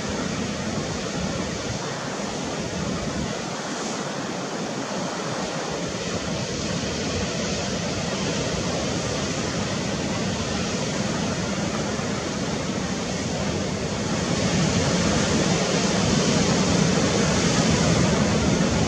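Steady rushing of sea surf and wind, growing somewhat louder about three-quarters of the way through.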